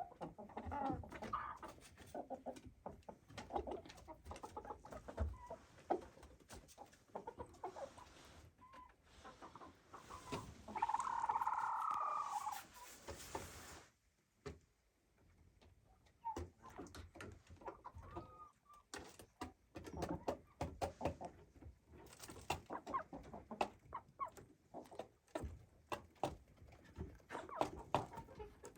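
Chickens clucking softly, among many short clicks, with one louder drawn-out call about ten seconds in. The sound drops out briefly at about the halfway point.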